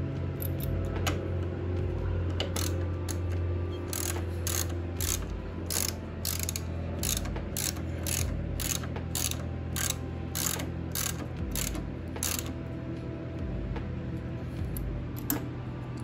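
Hand ratchet wrench clicking as it tightens a motorcycle's front brake caliper bolt, a run of sharp ratchet clicks about two a second.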